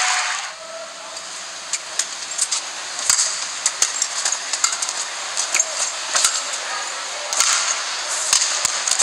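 Badminton rally: sharp racket strikes on the shuttlecock traded back and forth, sometimes two or three in quick succession, over a steady hiss of crowd and hall noise.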